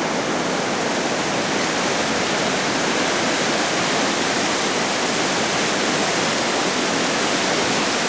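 Steady rushing of the Storforsen rapids, a powerful flow of open water pouring over rocks.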